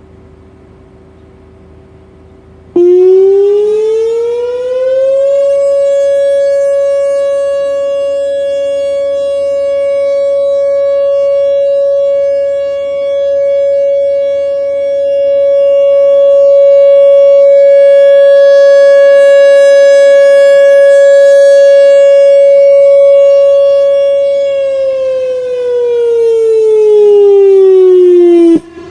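Whelen WPS 4004 electronic outdoor warning siren sounding a test. It comes on suddenly about three seconds in and rises in pitch over a couple of seconds. It holds one steady high tone for about twenty seconds, swelling and dipping a little in loudness, then falls in pitch and cuts off abruptly just before the end.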